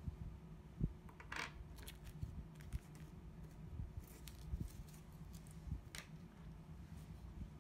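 Small plastic diamond-painting tools and a plastic bag being handled and set down on a wooden tabletop: scattered light clicks and taps, a soft thump about a second in, and a couple of brief plastic rustles, over a low steady hum.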